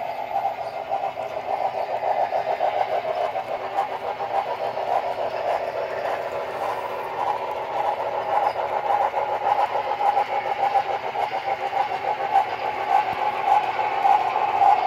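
HO-scale model trains running: a steady whirring hum from the small locomotive motors, with fine rapid clicking of wheels on the track. It grows a little louder near the end as the diesel comes closer.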